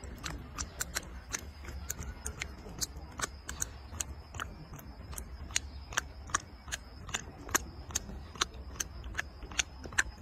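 Sharp, irregular clicks and crackles of a thin plastic drink bottle crunching under a macaque's teeth as it bites and chews on it, a few a second, over a low steady rumble.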